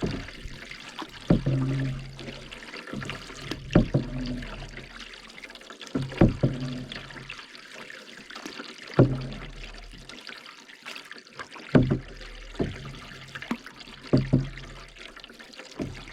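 Canoe paddle strokes in lake water: a dip and swirl about every two and a half seconds, with water trickling off the blade between strokes.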